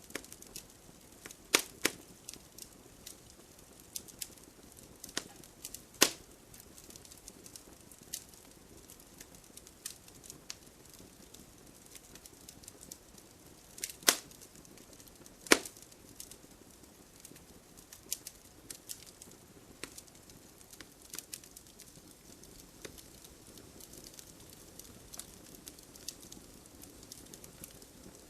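Wood fire crackling: irregular sharp pops and snaps over a soft steady hiss, with a handful of louder pops scattered through.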